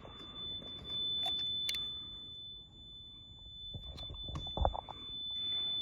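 Fire alarm buzzer sounding one steady, unbroken high-pitched tone: the system is in alarm after a test trip of the sprinkler waterflow switch. A few clicks and knocks and some soft hiss come through under it.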